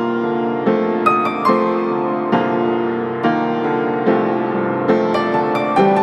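Background piano music: single notes and chords struck about once or twice a second, each ringing on into the next.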